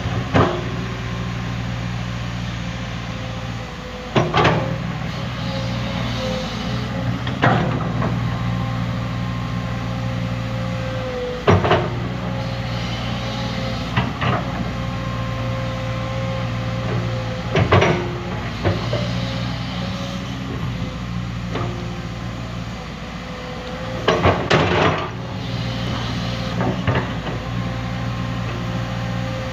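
Komatsu PC200 hydraulic excavator's diesel engine running steadily under load, with a steady whine over it. Sharp knocks come every few seconds, with a cluster of them near the end, as the machine works.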